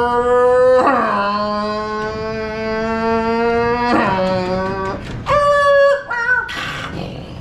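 A man imitating a race car engine with his voice: long droning held notes, the pitch stepping down about a second in, then short high-pitched squealing notes toward the end.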